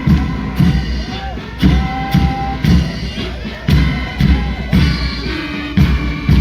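Loud music with a heavy drum beat about once a second and a sung or played melody over it.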